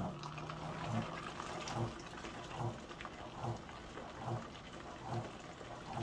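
LG Mega Capacity top-load washing machine agitating a bulky bean bag chair load on its bulky/bedding cycle: water swishes and sloshes in a steady rhythm, with a low surge a little more than once a second, and a low motor hum in the first second.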